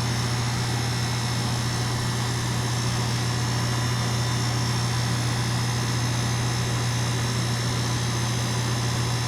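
2022 two-ton Goodman heat pump running in cool mode: a steady low hum with an even rush of fan air over it.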